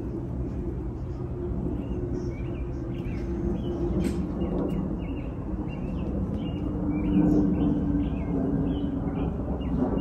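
Repeated short chirps of a small bird, roughly one or two a second, over a louder low droning rumble of distant engine noise that swells about seven seconds in.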